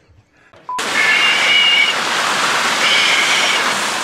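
Fountain water splashing and rushing steadily, cutting in suddenly about a second in. Two short high-pitched calls sound over it, one a little after the start of the rush and one about two seconds later.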